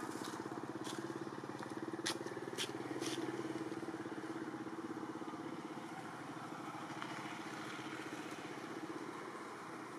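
A motorcycle engine running steadily on a nearby road, a low pulsing drone that is loudest in the first few seconds and slowly fades. A few sharp clicks come in the first three seconds.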